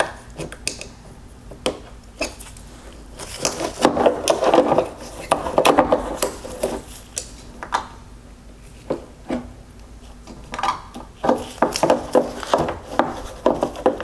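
Clicking, scraping and rubbing as a small pocket screwdriver pries at the plastic clips holding a xenon headlight ballast in the headlight housing. The noises come in two busy spells, near the middle and near the end.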